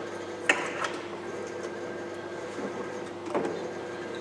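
A few sharp clicks and knocks of parts being handled and fitted at the open front end of a car, over a steady machine hum. The loudest click comes about half a second in, and another a little after three seconds.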